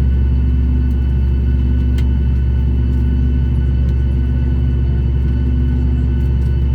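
Boeing 737 MAX's CFM LEAP-1B turbofan engines running steadily, heard from inside the passenger cabin: a loud, even low rumble with a steady hum and faint whine tones above it.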